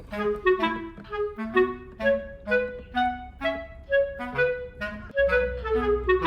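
Background music: a light, bouncy clarinet-like woodwind melody of short detached notes.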